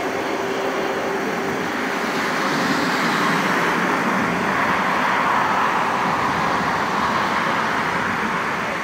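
Twin jet engines of a Boeing 777-200 at takeoff thrust during the takeoff roll: a loud, steady rushing noise that swells a little midway as the airliner accelerates down the runway.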